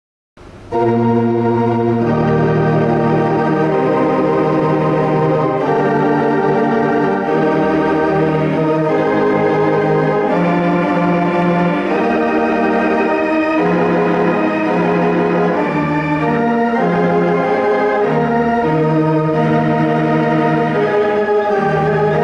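Organ music: an organ starts up about half a second in, after a short silence, and plays a tune of held chords over changing bass notes.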